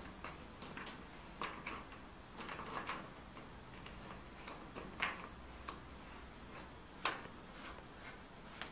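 Black plastic threaded collar being turned by hand onto a glass condenser's joint: faint, irregular light clicks and scrapes of plastic on glass, with two sharper clicks about five and seven seconds in.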